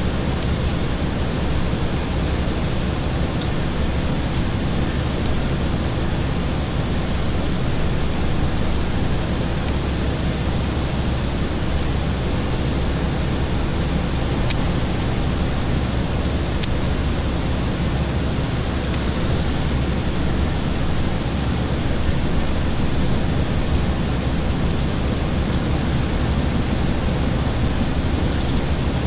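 Interior running noise of a Class 165 diesel multiple unit under way: a steady rumble from the underfloor diesel engine and the wheels on the rails. Two faint, sharp high ticks come about halfway through.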